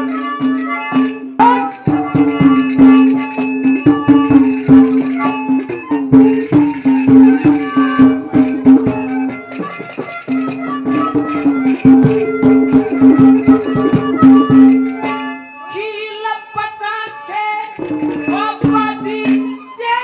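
Haryanvi ragini folk music played by the band: a held, droning melody line over dense hand-drum beats and jingling rattle percussion. About 15 s in, the drumming and the held note drop away for a couple of seconds while a gliding melodic line carries on, and then the full band comes back in.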